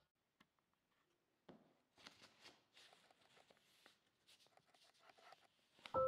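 Faint rustling of a sheet of paper and light taps of fingers moving over it, starting about a second and a half in, under near silence.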